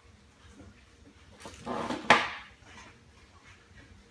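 Packaging and accessories being handled while unboxing: faint taps and rustling, a louder rustle about a second and a half in, then one sharp knock just after two seconds.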